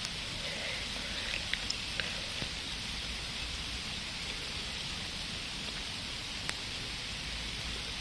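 Steady rain falling, an even hiss, with a few sharper ticks of single drops about a second and a half in and once more later on.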